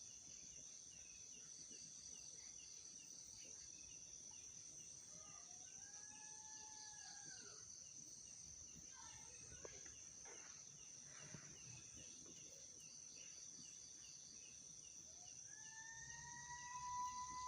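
Faint steady chorus of night crickets, with two long whining calls heard twice over it. The first rises and falls; the second, near the end, rises and then holds its pitch.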